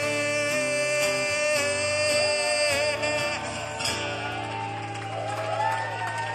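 Male voice holding the final sung note over strummed acoustic guitar chords, then the guitar rings out on a closing chord. Near the end the crowd starts to cheer.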